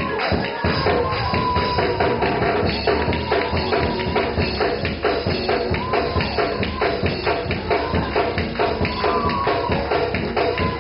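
Gospel church music: a tambourine keeps a fast, steady beat under a melody.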